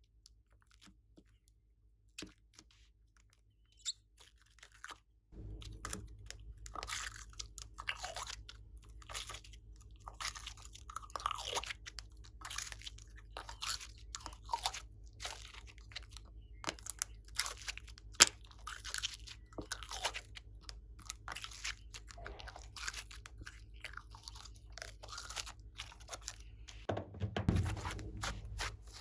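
Glossy slime being pressed and squished by hand, giving a dense run of small crackling clicks and pops as trapped air bursts. It starts about five seconds in, after a few isolated clicks.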